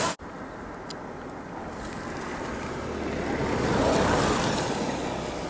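Wind buffeting the microphone on a moving motorcycle, over a low rumble, swelling to its loudest about four seconds in.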